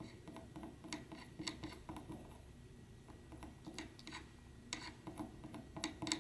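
Soldering iron tip working over fluxed connector pads on a flex cable, tinning them. It makes faint, irregular small clicks and scraping ticks, a few a second.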